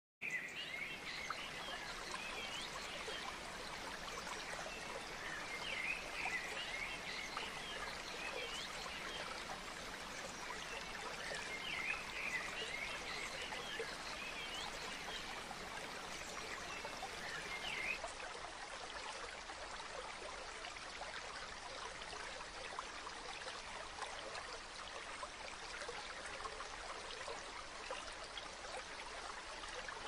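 Steady rush of falling and flowing water, with short bursts of chirping every few seconds. About eighteen seconds in the sound changes to plain rushing water without the chirps.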